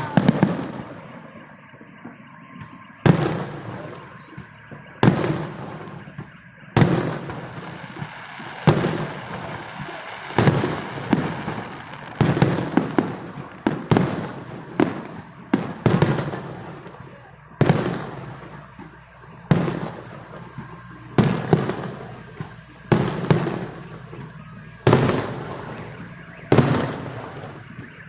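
Fireworks salute: aerial shells bursting in a steady series, a sharp bang every second or two, each trailing off into crackle and echo.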